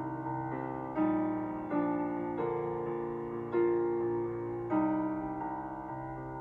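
Soft, slow piano music: sustained chords struck about once a second and left to ring and fade.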